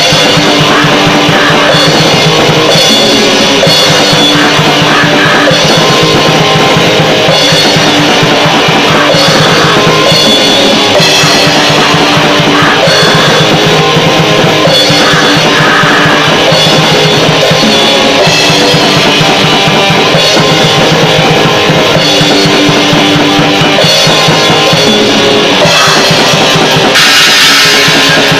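Rock band playing a song: a drum kit played hard, bass drum and cymbals over electric guitar, loud throughout.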